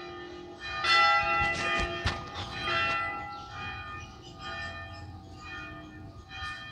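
Hindu temple bell struck several times, starting about a second in. Its long overlapping ringing tones slowly fade over the following seconds.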